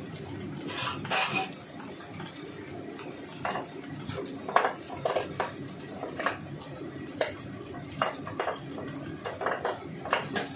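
Kitchen utensils, dishes and containers clinking and knocking against each other and the counter, a string of separate sharp clinks over a steady low rumble.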